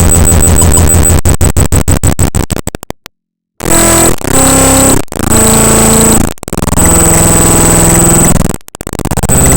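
Raw binary data of the Windows 10 SnippingTool.exe program file played directly as audio: a loud, harsh digital buzz of steady tones and noise. It breaks into a rapid stutter that trails off into a brief silence about three seconds in, then returns as blocks of held tones over a high whine, cut by a few short dropouts.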